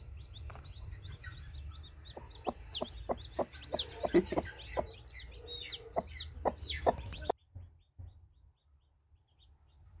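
Newly hatched Cheonggye chicks peeping in many short, high calls, with low clucks from the broody hen sitting on the hatching clutch. The sound cuts off suddenly about seven seconds in, leaving only faint low noise.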